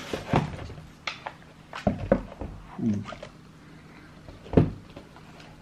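Cardboard shoebox and trainers being handled: a series of separate knocks and clicks, with the loudest thump about four and a half seconds in.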